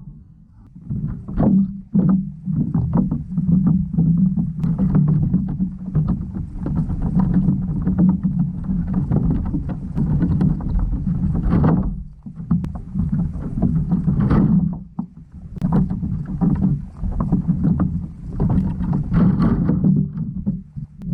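Underwater noise from a GoPro in its waterproof housing: a muffled, steady low rumble full of irregular clicks and knocks.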